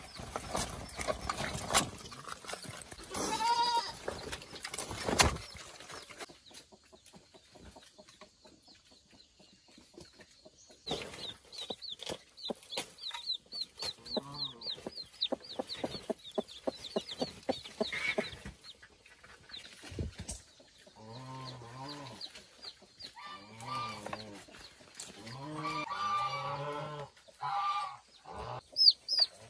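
Farm animals calling. A few knocks sound in the first seconds, then a long run of rapid high chirps, and several short low calls toward the end.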